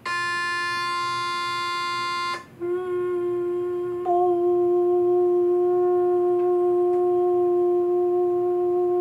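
An electronic reference tone sounds F above middle C, steady for about two and a half seconds, then a woman sustains a soft, steady "mo" on the same pitch: a humming M that opens into a rounded-lip "o" about four seconds in and is held to the end. This is the sustained-pitch drill of vocal function exercises, kept as soft and steady as possible to strengthen the vocal folds.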